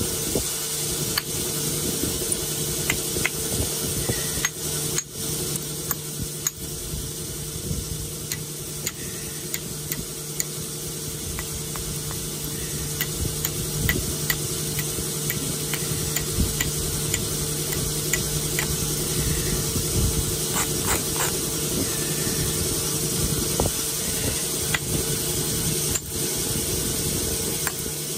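Flintknapping by hand: the edge of a stone biface is rubbed with an abrader stone and worked with a hand-held pressure flaker. The sound is a steady scratchy grinding, broken by many small sharp clicks as the edge is worked, over a steady low hum.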